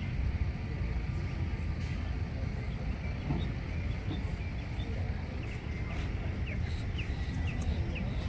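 Outdoor wind rumbling on the phone microphone, with a few short bird chirps in the second half.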